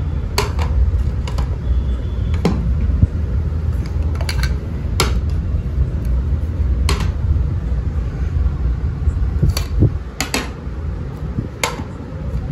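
Square ceramic plates and bowls being set out, each giving a short, sharp clink, about ten spread through the stretch, over a steady low rumble.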